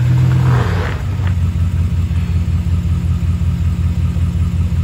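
Pickup truck engine running at a low, steady idle-like speed with an even low pulsing while it creeps forward in four-wheel-drive low range. A short noisy rush rises over it in the first second, with a faint click just after.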